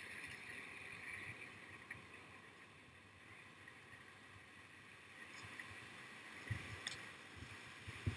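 Faint rushing of a river rapid ahead, growing a little louder over the last few seconds, with a few low thumps near the end.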